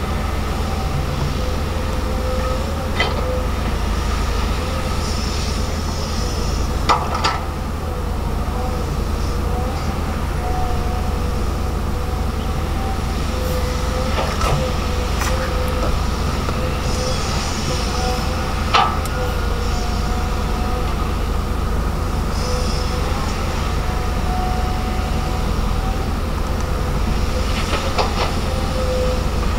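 Volvo EC210DL excavator's diesel engine running steadily under load, with a steady whine over the engine and a few short, sharp knocks spread through as it digs and dumps dirt into a dump truck.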